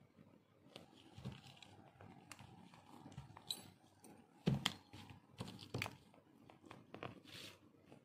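Handling noise from a leather-bound journal being turned over and fingered on a tabletop: soft rustling and scraping with scattered clicks and knocks, the sharpest about four and a half seconds in.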